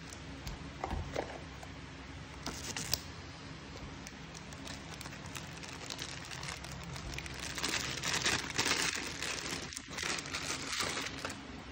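Clear plastic wrapping crinkling and crackling in the hands as a wristwatch is pulled from its protective bag, with scattered small clicks. It grows busier and louder in the second half.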